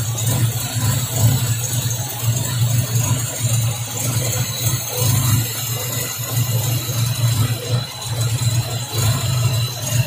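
Toyota Corolla DX's four-cylinder engine idling steadily, running on an ignition converted from breaker points to a Shogun motorcycle CDI.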